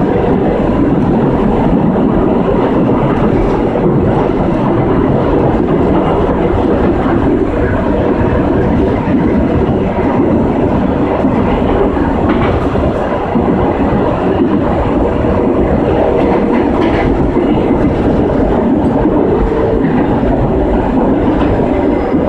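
CAF FE-07 steel-wheeled metro train running at speed, heard from inside the driver's cab: a steady, loud rumble of wheels on rail, with a faint steady tone under it and a few light clicks.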